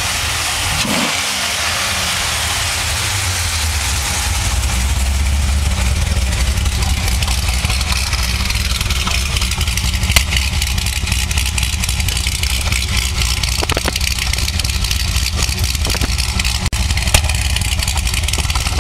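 Lingenfelter-tuned Chevrolet Corvette Z06 V8 idling steadily, heard at its quad exhaust tips, growing louder about five seconds in as the tailpipes get closer. Two short sharp clicks come in the second half.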